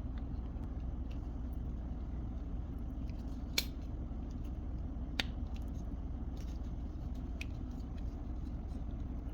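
Small clicks of a glove box lock cylinder and its clip being fitted back into the handle, two sharp clicks about a second and a half apart and a few fainter ticks, over a steady low hum.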